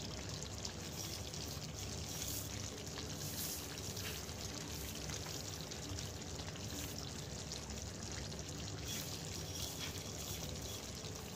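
Chicken roast simmering in its thick gravy in a pot, a steady bubbling sizzle.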